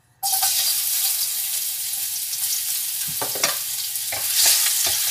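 Chopped garlic hitting hot oil in a nonstick wok and sizzling at once, starting suddenly. From about three seconds in, a wooden spatula stirring it adds short scrapes and taps against the pan.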